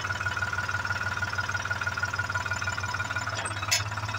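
New Holland Excel tractor's diesel engine running steadily, with an even hum and a steady high whine over it. A single sharp click near the end.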